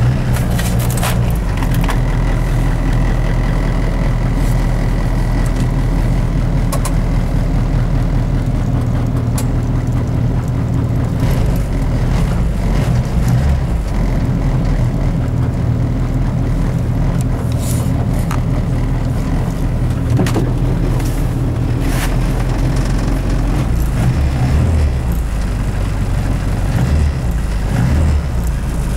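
Suzuki Samurai 1.3-litre carburetted four-cylinder engine running steadily at a raised cold-start fast idle of about 2,000 to 3,000 rpm, warming up after a start at −20°C.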